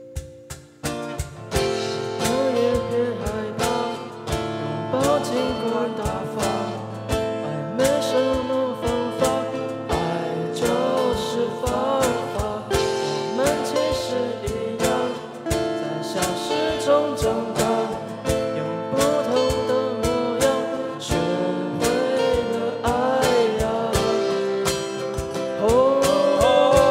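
Live song with acoustic guitars strumming and picking a steady beat under a wavering vocal melody; the music starts about a second in.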